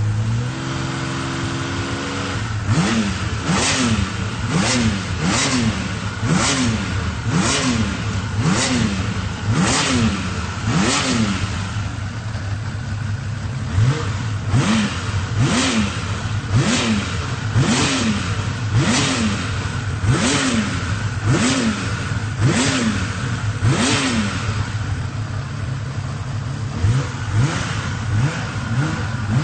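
Honda CBX 1050's six-cylinder engine revved in quick throttle blips, each rise in pitch dropping straight back, about once a second, with a brief idle in the middle and shorter, quicker blips near the end.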